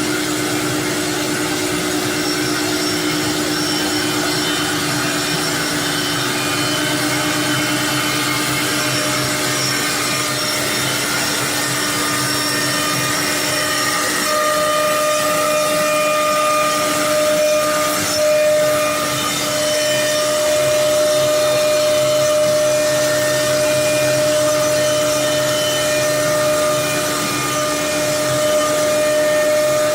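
Multi-spindle CNC router running: a steady spindle whine over an even machining noise. The pitch of the whine shifts about halfway through, and there is one brief sharp noise a little after that.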